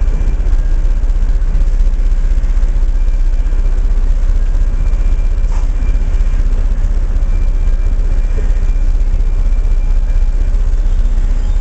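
Test-train locomotive standing with its engine running: a loud, steady low rumble.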